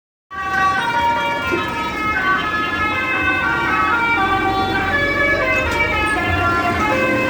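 Bus telolet horn, a set of multi-tone air horns on a bus, playing a melody of short held notes that step up and down in pitch. It starts abruptly just after the beginning.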